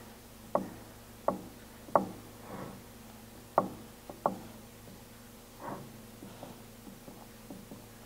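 Soft knocks of a pie dish shifting and being turned on a wooden cutting board while the pie crust's edge is crimped by hand: a handful of short taps at irregular intervals, the clearest in the first half.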